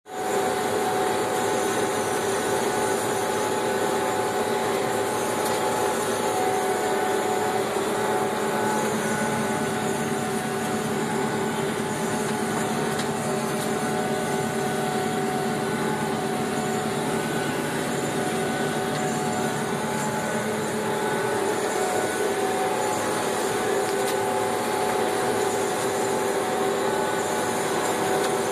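John Deere 6330 tractor's diesel engine and the PTO-driven John Deere 1365 disc mower running steadily under load while cutting tall reed canary grass, heard from inside the tractor cab as an even drone with a steady hum.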